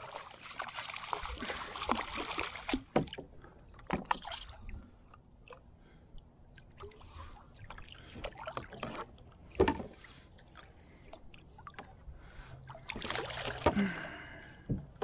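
Water splashing as an arrowed pleco, an armored catfish, thrashes on the bowfishing line. A few sharp knocks on the kayak follow while the line is reeled in, and there is more splashing near the end as the fish is hauled up beside the boat.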